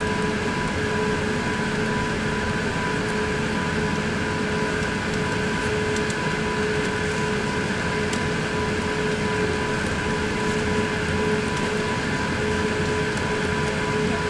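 Steady hum of an Airbus A380 airliner with its jet engines and air conditioning running at a constant, low setting. A few steady whining tones sit over an even rushing noise, with no rise in power.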